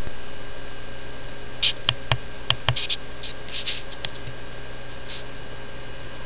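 Handling noise: a few light clicks and short scratchy rustles, clustered in the first half, over a steady hiss and faint electrical hum.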